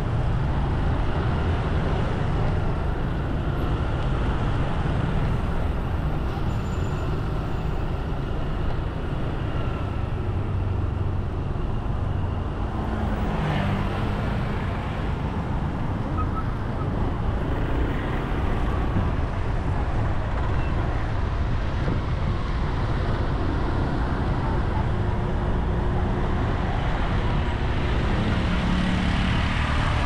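Steady road traffic noise from passing vehicles, with one vehicle passing close about halfway through.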